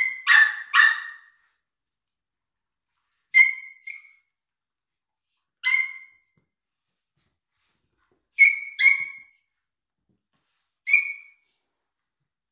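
Dog giving short, high-pitched barks: three in quick succession at the start, then single or paired barks every couple of seconds.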